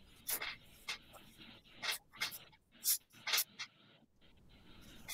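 Marker pen scratching across flip-chart paper as a word is written: a run of short, separate strokes, with a brief pause near the end.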